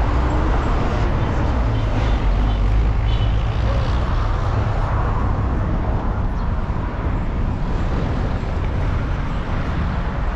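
Steady rumble of highway traffic, with vehicles passing close by, heaviest in the first few seconds and easing a little after.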